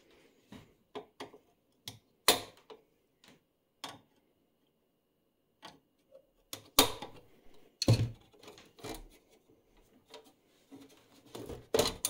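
Scattered clicks and knocks of metal parts and panels being handled as a vintage oscilloscope is taken apart, at uneven intervals, with three louder knocks and a quick run of small clicks near the end.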